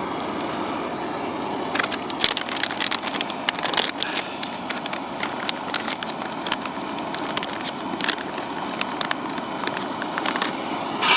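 Camp stove burner running with a steady rushing hiss, with scattered sharp clicks and crackles from about two seconds in until near the end.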